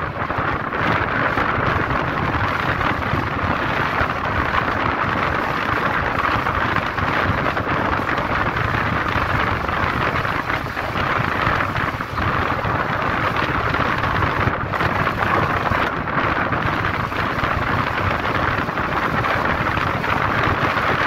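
Steady rushing wind noise on the microphone mixed with the road noise of a moving vehicle, even and unbroken throughout.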